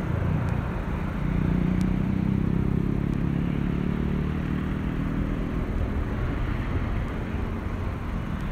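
Steady low motor hum with a faint buzzing pitch, swelling about a second in and easing off near the end.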